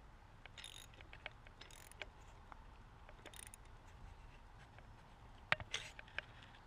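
BMX bike parts being handled during assembly: faint scattered metallic clicks and rattles with a few short scraping bursts, and a sharp clack about five and a half seconds in.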